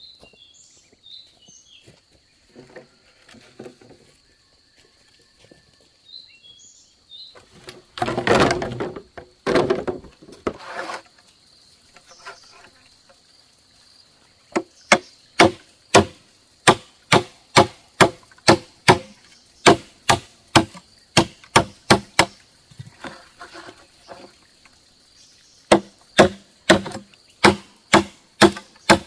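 A blade chopping bamboo: a run of sharp, even strikes about two a second, a brief pause, then more strikes, over a steady high insect drone. About a third of the way in come two loud, noisy scraping bursts.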